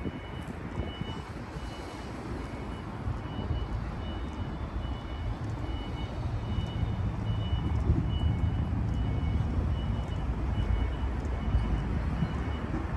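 A vehicle's reversing alarm beeping at an even pace, about once a second, over the low rumble of a vehicle engine running that grows a little louder a few seconds in.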